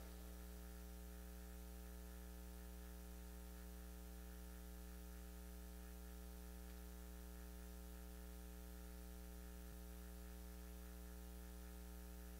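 Near silence apart from a steady electrical mains hum, a stack of even tones under a faint hiss in the audio feed.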